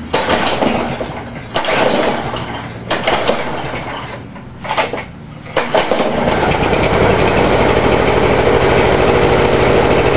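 A 1986 Homelite Jacobsen commercial mower's 6 hp Briggs & Stratton engine being pull-started on full choke. Several separate pulls on the recoil rope, then it catches about six seconds in and runs steadily.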